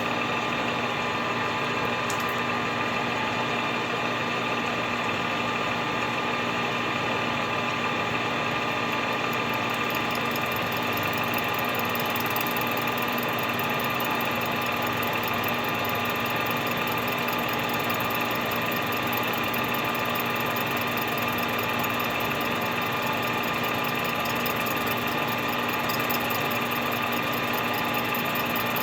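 Milling machine running steadily as its cutter takes a light final pass across the base of a Stihl MS 261 chainsaw cylinder: a steady motor hum with several held tones. A faint fast ticking joins in about ten seconds in.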